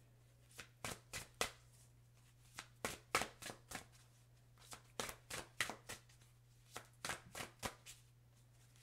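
A deck of Green Witch Oracle cards being shuffled by hand: sharp, irregular card snaps in four short flurries, with a steady low hum underneath.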